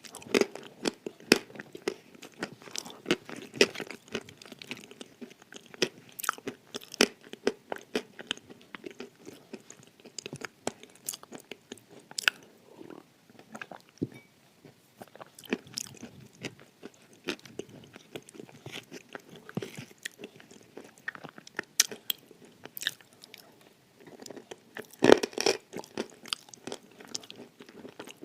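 Dry edible clay being bitten and chewed close to the microphone: a long run of crisp crunches and crackles, with brief lulls and a louder burst of crunching near the end.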